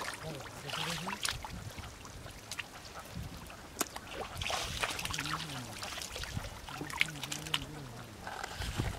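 Wet squelching and small splashes of hands digging through shallow mud and water, with scattered short wet clicks and slaps.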